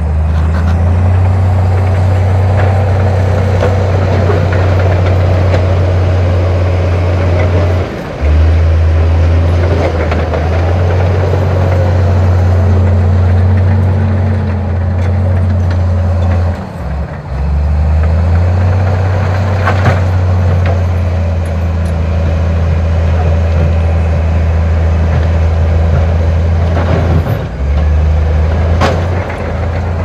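Heavy diesel earthmoving machinery running with a loud, steady low rumble, which drops out briefly three times, with a few sharp knocks among it.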